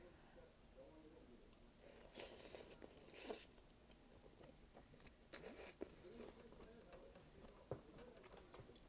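Faint eating sounds of malatang: soft chewing and mouth noises, with a few short hissy patches and several sharp little clicks, the loudest about three-quarters of the way through.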